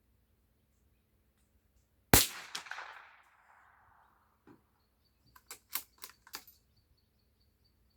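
A single shot from a CZ 455 Evolution bolt-action rimfire rifle, a sharp crack about two seconds in that rings out and fades over about two seconds. A few seconds later comes a quick run of metallic clicks and clacks as the bolt is worked.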